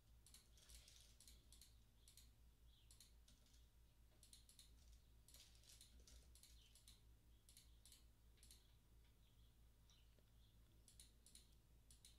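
Faint computer keyboard typing and mouse clicks: irregular clusters of quick light taps with short pauses between them.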